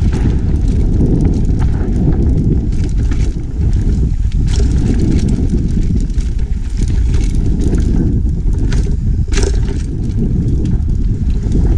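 Wind buffeting an action camera's microphone over the rumble of mountain bike tyres rolling fast on a dirt trail, with sharp rattles and knocks of the bike over bumps, the strongest about nine and a half seconds in.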